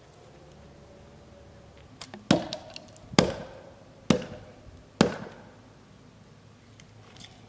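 Four heavy, sharp strikes on a tree being felled, about a second apart, each ringing briefly, with a few lighter taps just before them.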